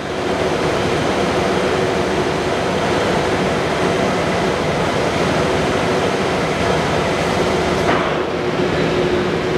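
Leblond NK 36 x 132 engine lathe running, its spindle drive and geared headstock giving a steady mechanical hum with a constant tone through it.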